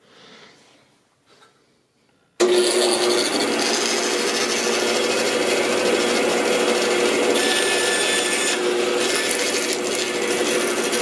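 Bandsaw starts suddenly about two and a half seconds in and runs steadily with a constant hum, as a thin strip of wood is fed through the blade to cut off a small piece of end grain.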